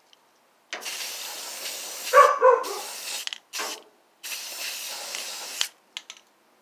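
Aerosol can of gray weld-through primer spraying in three bursts: a long one of about two and a half seconds, a short one, then one of about a second and a half. A dog barks twice about two seconds in.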